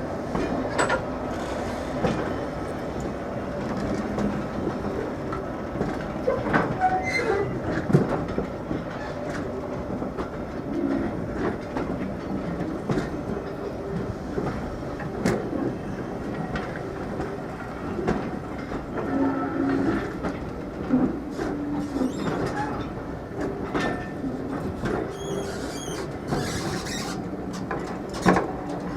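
A train moving slowly on track, its wheels clicking and knocking over the rails, with a few short high squeals near the end.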